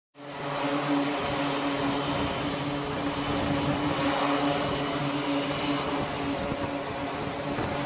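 Steady drone of an E-2 Hawkeye's twin turboprop engines running, a constant propeller hum under a rushing noise, cutting in abruptly at the start.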